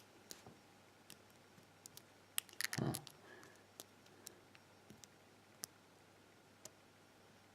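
Faint, scattered clicks of a lock pick and tension wrench working the pin stack of a 5-pin brass padlock with spool security pins, with a denser run of clicks and a soft knock about two and a half seconds in.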